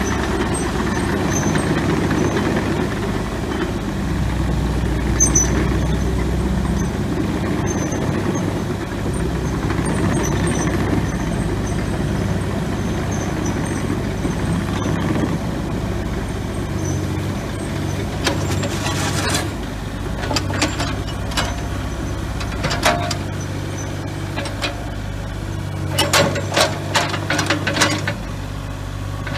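Kubota KX040-4 mini excavator's diesel engine running steadily, with a series of sharp knocks in the last third.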